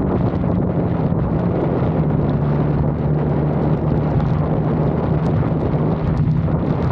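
Lexus IS 250 driving at a steady speed: a constant engine and road drone, with wind buffeting the microphone.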